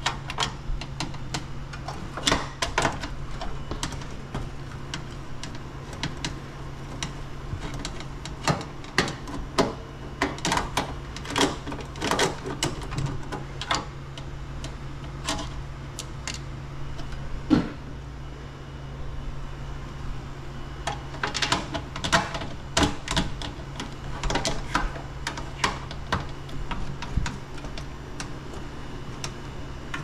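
Irregular clicks and small metal taps of a screwdriver and wires being handled at an air handler's wiring terminals, in clusters with one louder knock about halfway through, over a steady low hum.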